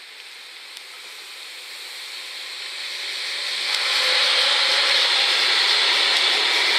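Freight train of sliding-wall wagons hauled by a Euro Cargo Rail locomotive, approaching and passing close by: a rising rush of wheels on rail that turns loud and steady about four seconds in as the wagons roll past.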